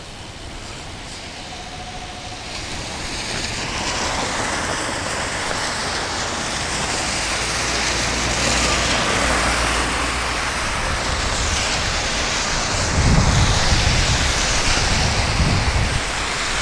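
Wet-road noise while cycling in the rain: a steady hiss of tyres and passing cars on wet pavement, growing louder over the first few seconds. Wind rumbles on the microphone near the end.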